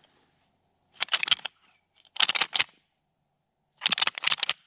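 Three short bursts of rapid clicking and clacking from a hand-held deer rattling call, worked to imitate whitetail bucks sparring.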